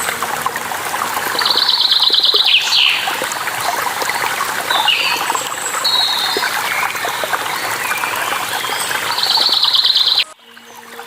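Running water with birds chirping over it, including two rapid high trills, one about a second and a half in and one near the end. The sound drops away abruptly just before the end.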